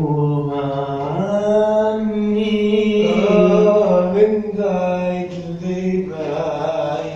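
A man singing unaccompanied in an Egyptian Arabic popular style. He draws out long held notes without clear words, sliding up and down between them.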